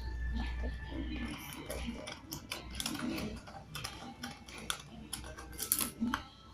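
Scissors snipping: a run of short, sharp, irregular clicks.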